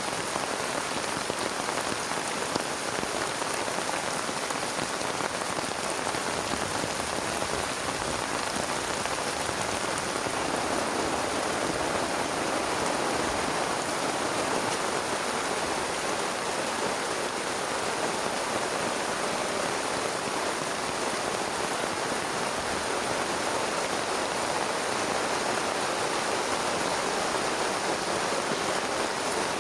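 Heavy rain falling steadily, a dense, even patter of many drops.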